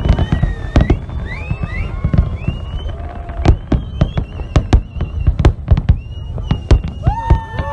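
Fireworks going off in rapid, irregular bangs and crackles. Gliding whistle-like tones sound over the bangs, and a held pitched tone comes in near the end.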